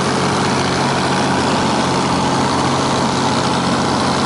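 A boat's engine running steadily at a constant speed, a low even drone with a broad rushing noise over it.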